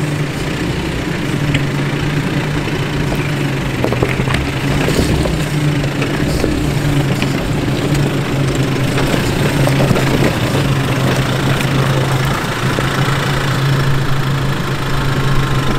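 Nissan Navara 4x4 crawling slowly over a rocky track, its engine running steadily at low revs. Loose rocks crunch and knock under the tyres as it comes up close.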